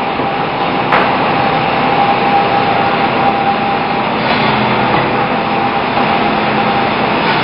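Sawmill bandsaw running, cutting ipe hardwood logs into boards: a dense, steady mechanical din with a steady high hum that weakens about four seconds in. A single sharp knock about a second in.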